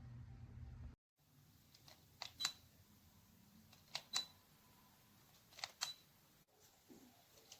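A low steady hum cuts off about a second in, followed by four pairs of sharp mechanical clicks spaced about a second and a half apart.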